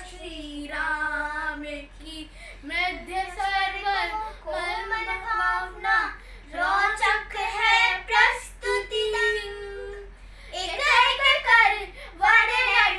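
Two children singing a Ramayan katha, a sung telling of the Ramayana story, with no instruments. The voices hold long notes in phrases separated by short breaks.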